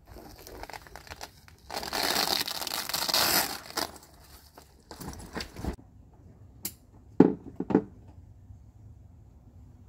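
Velcro strips on a canvas storage bag being peeled apart: a long tearing rip of about two seconds, then softer rustling of the fabric. A few short sharp knocks follow later, the loudest about seven seconds in.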